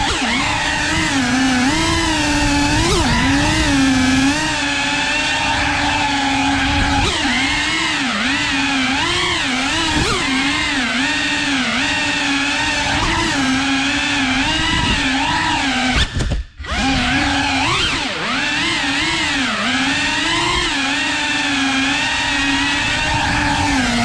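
Brushless motors and propellers of a 3.5-inch cinewhoop FPV drone whining, the pitch rising and falling constantly with the throttle. The sound drops out for a moment about 16 seconds in, then picks up again.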